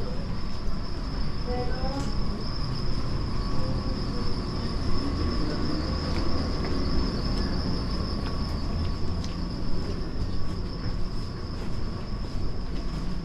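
City street ambience: a steady low rumble of traffic and passers-by under a continuous high-pitched whine, with faint voices in the first couple of seconds.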